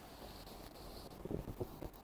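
Faint room quiet, broken in the second half by a few soft, low knocks and rustles as a person shifts and bends forward on a leather sofa.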